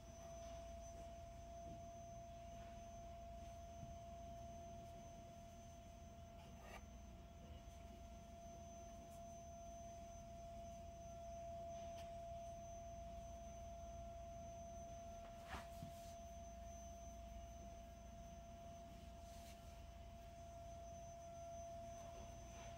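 Near silence: room tone with a faint steady high-pitched tone throughout and a few faint clicks.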